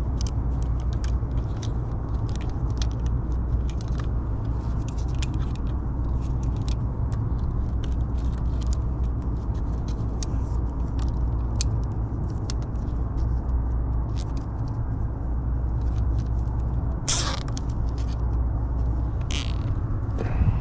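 A steady low machine hum with scattered small clicks of wires and parts being handled, and near the end two short rasps of nylon cable ties being pulled tight.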